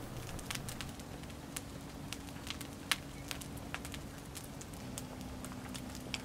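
Campfire burning in a metal fire stand, crackling with sharp, irregular pops about twice a second.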